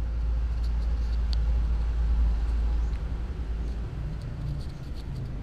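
A low rumble, loudest for the first three seconds and then easing, with a few faint clicks of a kitten chewing rice.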